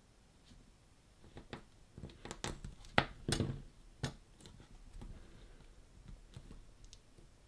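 Small sharp clicks and taps of fingers working a flat ribbon cable into its connector, bunched together from about one and a half to four and a half seconds in, the loudest near three seconds, then a few faint ticks.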